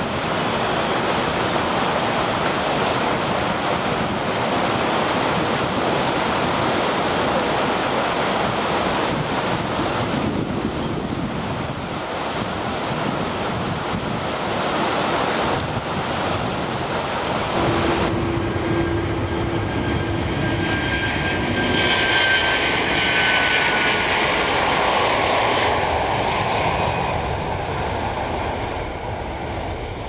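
Airbus A330-300's Rolls-Royce Trent 700 turbofans: a steady rushing jet noise, then after an abrupt change about two-thirds through, a whining engine sound with several high tones, one slowly falling, at its loudest during the take-off run.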